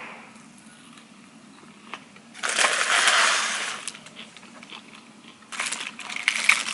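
Takeaway food packaging being handled, crinkling and rustling in two spells: a loud one lasting about a second and a half, and a shorter, clicky one near the end.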